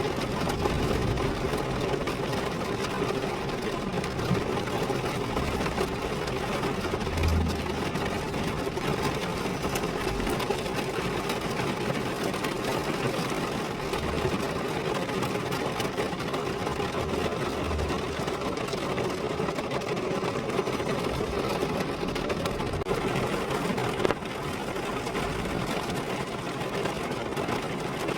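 Rain falling on a car, a steady patter of many drops on the body. One louder tap about 24 seconds in, after which the patter is a little quieter.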